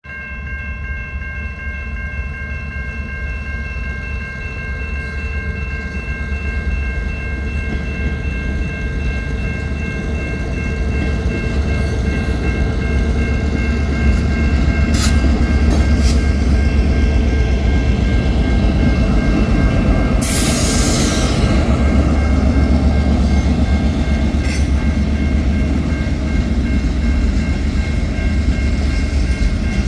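Freight train rumbling past, growing louder over the first half and then holding steady, with steady high-pitched tones above the rumble throughout. A few sharp clicks come in the middle, and a brief hiss a little past two-thirds of the way.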